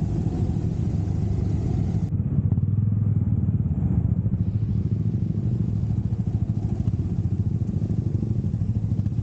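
Motorcycle engine running, heard from on board the bike, with a steady low rumble that gets louder about two and a half seconds in as the bike pulls away and rides on at low speed.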